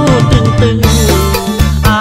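Lao pop song: a man singing over a band with bass and a steady drum beat.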